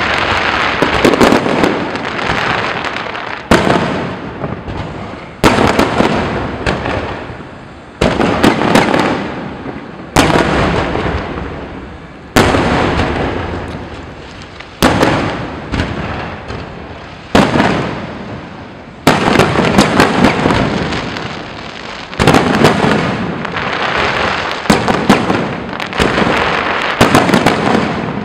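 Aerial fireworks shells bursting overhead, a loud boom every two to three seconds, each one echoing away. Fine crackling and popping fills the gaps between the booms.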